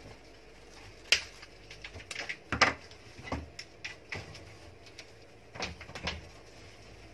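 Scattered knocks and clicks of objects being handled on a tabletop as a hot glue gun is picked up and an artificial rose readied. The sharpest knock comes about a second in, and a quick cluster of clatter follows around two and a half seconds.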